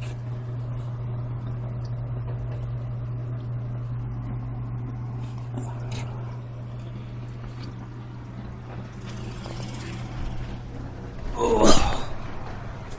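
Steady low electrical hum from running aquarium equipment. Near the end there is a short, loud rustle of handling noise as the phone is swung about.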